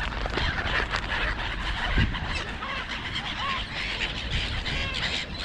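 Gulls calling as they feed: many short, overlapping cries over a steady background hiss, with a single thump about two seconds in.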